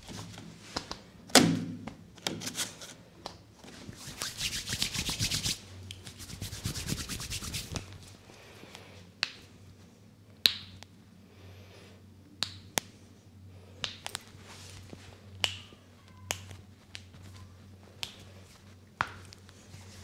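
Hands rubbing briskly over skin for a few seconds, then a string of single sharp pops about a second apart as the fingers are pulled one at a time and their knuckle joints crack.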